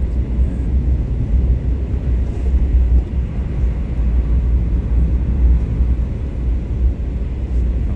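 Steady low rumble of a Subaru Baja being driven on snowy winter roads, heard from inside the cabin: engine and tyre noise with no change in pace.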